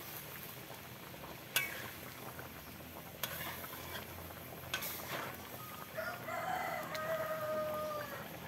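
A metal spatula knocks against the wok three times as the rendang is stirred, the first knock the loudest. About six seconds in, a rooster crows once in a long call lasting about two seconds.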